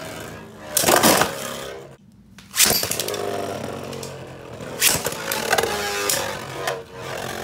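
Two Beyblade Burst tops, Victory Valkyrie and Dark Deathscyther, spinning in a plastic stadium with a steady whirring rattle. The whir is broken by sharp clacks as the tops collide, most strongly about a second in, and the sound drops out briefly around two seconds.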